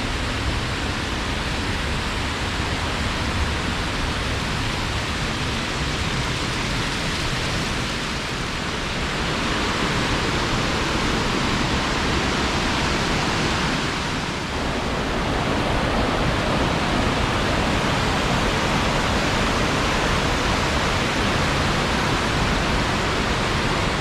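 Waterfall and creek water rushing steadily, the flow high after recent hard rain.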